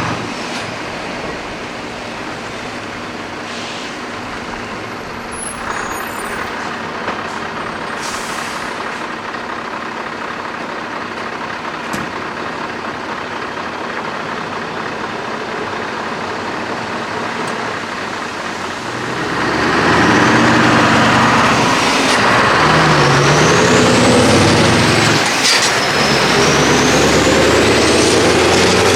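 Scania R500 V8 truck engines running through open straight exhaust pipes: a steady rumble at first, then about two-thirds of the way in one truck pulls away much louder, its engine note rising and falling several times.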